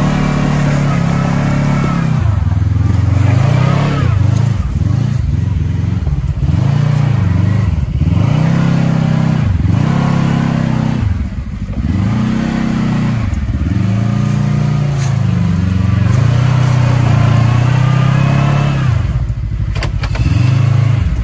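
Side-by-side UTV engine revving up and down over and over, the pitch swelling and falling back about every one to two seconds, as the throttle is worked through a rock obstacle.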